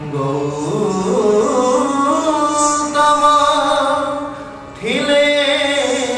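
Indian classical music with a singing voice holding long, gliding notes. One phrase fades out a little past four seconds in, and a new phrase starts with a rising note just before five seconds.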